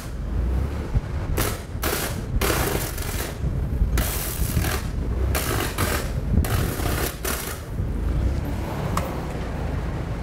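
Electric arcing between an energized overhead line and a bundle of hot dogs held on a lineman's hot stick, with no rubber cover in between. It comes as about six separate bursts, each lasting from a fraction of a second to about a second, spread over the first seven and a half seconds.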